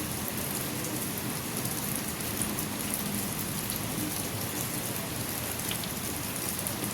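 Steady rain falling and pattering on surfaces, with a few individual drops ticking.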